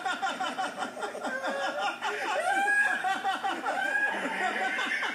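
Several people laughing together, overlapping and continuous.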